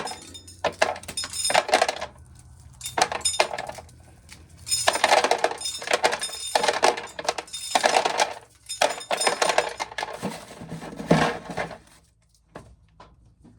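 Dried corn being shelled by hand, the hard kernels clattering into a can in repeated bursts, stopping near the end.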